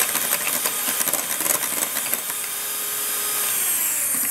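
Breville hand-held electric mixer running at speed, its twin beaters whisking egg and sugar in a glass bowl, with frequent ticks as the beaters strike the glass.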